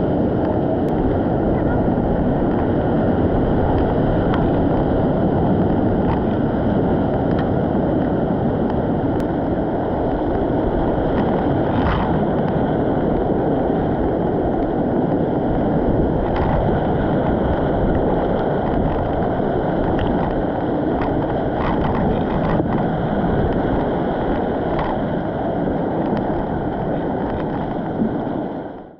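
Steady rushing of a Class III whitewater rapid heard from a small raft running it, with a few brief slaps along the way. The sound cuts off abruptly near the end.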